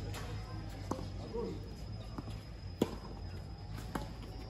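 Tennis rally on a hard court: sharp pops of racquets striking the ball and the ball bouncing, roughly one a second, the loudest about three seconds in.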